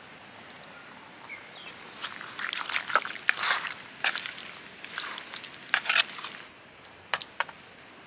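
Wooden-handled ladle stirring sliced young coconut and spices in a clay pot: irregular wet scraping and rustling from about two seconds in, lasting about four seconds, then two sharp taps near the end.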